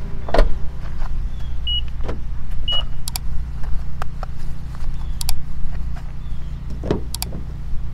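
A car driving slowly, heard as a steady low road rumble, with scattered light clicks and two short high beeps about a second apart, about two seconds in.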